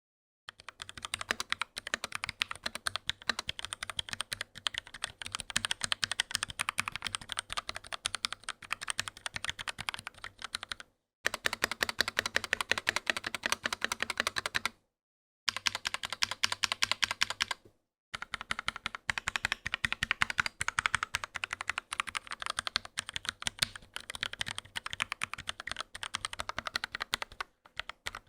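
Fast, continuous typing on a Gamakay CK68 mechanical keyboard with pre-lubed Gateron Yellow linear switches: a dense clatter of keystrokes broken by a few brief pauses.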